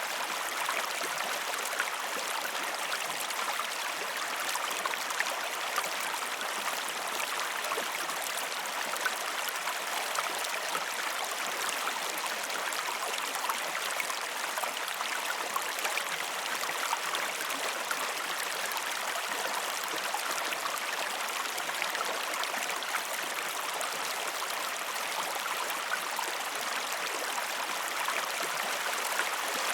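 River water flowing and babbling steadily, a dense continuous rush with fine splashing and gurgling detail.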